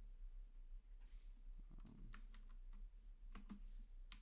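Faint, scattered clicks of a computer keyboard and mouse, a few close together about two seconds in and again about three and a half seconds in.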